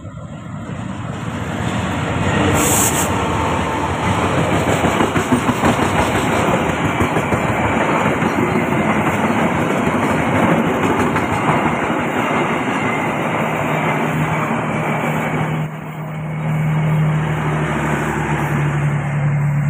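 Ciremai passenger train passing slowly and close by. The sound rises as the diesel-hauled train arrives, then the coaches roll past with steady wheel-and-rail noise and clickety-clack, with a brief high hiss about three seconds in. Near the end a steady low drone comes in as the generator car at the rear goes by.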